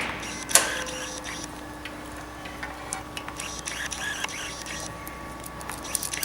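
Hands handling cable and connector parts: a sharp click about half a second in, then scattered light clicks and rustle, over a steady equipment hum.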